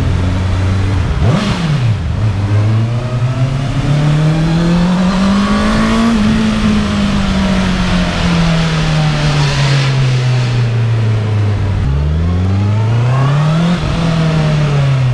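Honda CB650R's inline-four engine, A2-restricted to 35 kW, heard on board while riding. It revs up and drops back briefly about a second in, then climbs smoothly in pitch for a few seconds as the bike accelerates. It winds slowly back down and picks up again near the end.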